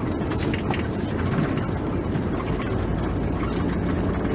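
Vehicle driving, its steady engine and road rumble overlaid with scattered light clicks and rattles.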